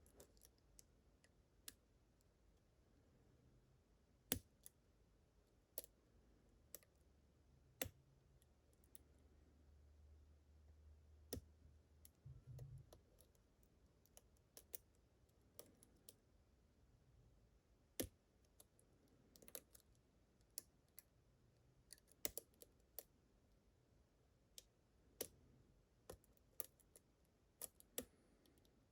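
Faint, irregular clicks of a lock pick and tension wrench working the pins of a pin-tumbler challenge lock, single ticks a second or more apart with quiet between.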